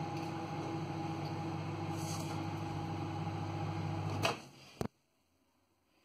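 Microwave oven running with a steady hum. About four seconds in, a sharp click cuts the hum off, and a second click follows about half a second later as the oven stops.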